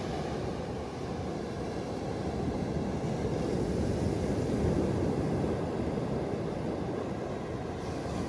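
Steady low rush of ocean surf and wind on the microphone, swelling a little around the middle.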